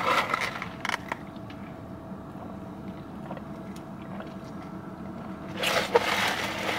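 Plastic drinking straw scraping through the lid of a plastic iced-drink cup: a short scrape as it is pushed in, a few light clicks, then about five and a half seconds in a longer scrape as the straw is worked up and down in the cup.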